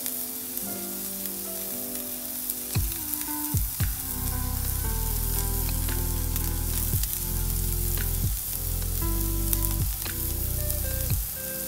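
Sliced onions frying in oil in a pan, sizzling steadily, with a few sharp pops. Background music plays over it, with held notes that step in pitch and a strong bass line coming in about four seconds in.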